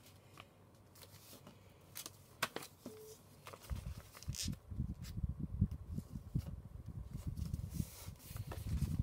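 Sheets of paper being folded and creased by hand on a tabletop: a few soft paper clicks at first, then, from about four seconds in, a steady run of soft rubbing and dull thumps as the hands press the folds flat against the desk.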